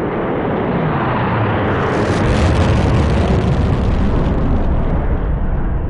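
Sound effect of a falling flaming meteorite: a loud rushing noise that swells about two seconds in into a deep explosion rumble, its hiss thinning out near the end.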